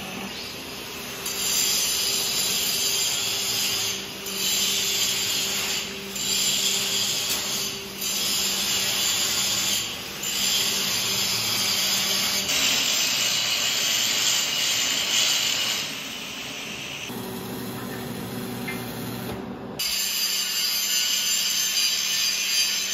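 Handheld angle grinder grinding steel on a planter's broken lift assist mount to prepare it for welding, in passes of a few seconds with brief dips as the disc is lifted. It is quieter for a few seconds past the middle.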